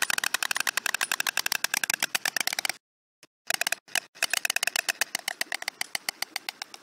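White storks clattering their bills in a rapid run of clacks, about a dozen a second, a courtship display given as the pair mates on the nest. The clattering breaks off for about half a second around three seconds in, then resumes and dies away near the end.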